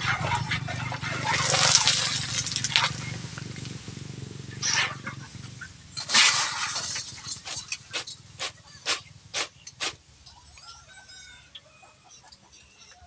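A metal spatula scraping and stirring in a steel wok of frying macaroni. About halfway through comes a run of sharp metal taps, about two a second, as the wire strainer is knocked against the wok to drain off the oil. It goes quiet near the end.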